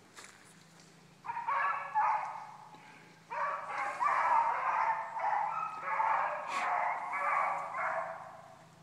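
Pack of beagles baying as they run a rabbit's track: a couple of short outbursts about a second in, then near-continuous overlapping baying until just before the end.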